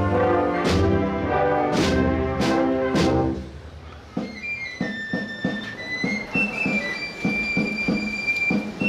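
A brass procession band plays a march with cymbal crashes, then breaks off about three and a half seconds in. Quieter music follows, with repeated plucked notes under high held tones.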